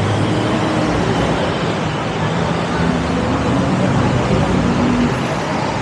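Steady traffic noise from a busy city road, with motor vehicles running and passing.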